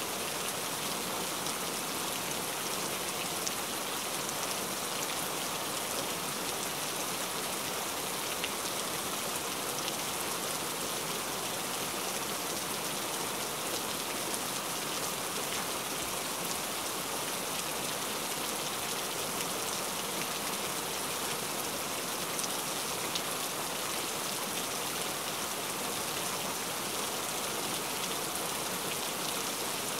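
Heavy rain falling steadily: an even, unbroken hiss with many small drop ticks.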